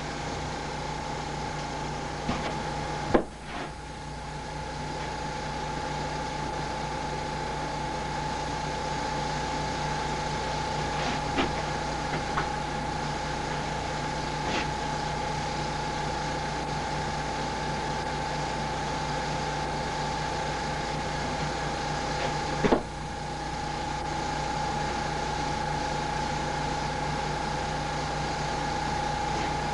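Airbrush compressor running with a steady hum and hiss. There is a sharp click about 3 seconds in and again about 23 seconds in, each followed by a brief dip in the sound.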